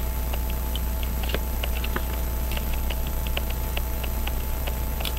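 Faint, irregular little metallic clicks, a few a second, of steel tweezers gripping and slipping on a pocket watch's hour wheel, which is stuck on with old crud instead of sliding off. A steady low electrical hum runs underneath.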